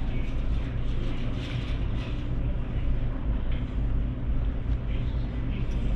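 Steady low rumble of restaurant room noise, with a few faint clinks of cutlery.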